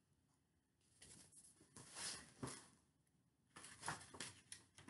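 Near silence, with a few faint, brief rustles of a picture book's paper pages being handled and turned.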